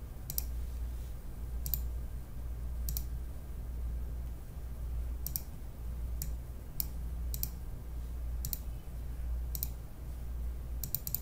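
Computer mouse button clicking about ten times at irregular intervals, with a quick double click near the end, over a steady low hum.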